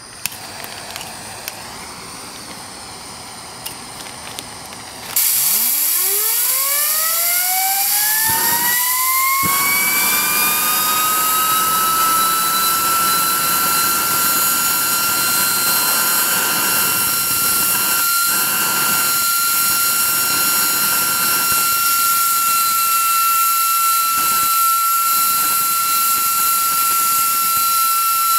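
Homemade turbocharger jet: a loud rush of air starts suddenly about five seconds in, and the turbo's whine rises steeply in pitch as it spools up, then holds at a steady high whine.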